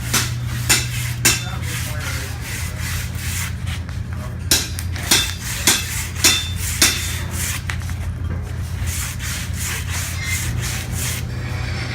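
Rhythmic scraping strokes, about one every 0.6 seconds: three near the start, then five more a few seconds in, over a steady low hum.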